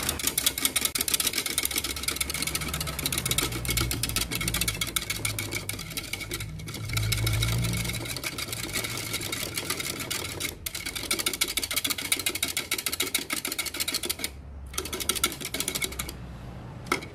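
Wire whisk beating a thin milk-and-egg mixture in a plastic measuring jug, its wires clicking rapidly against the jug's sides, with a few brief pauses.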